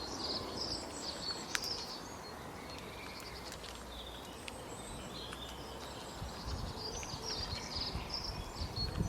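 Small birds chirping and trilling in short repeated phrases over steady outdoor background noise, with a low rumbling noise coming in over the last few seconds.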